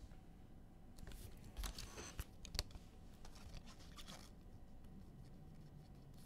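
Faint, brief rustles and scrapes of basketball trading cards and their foil pack wrappers being handled, several times with short pauses between.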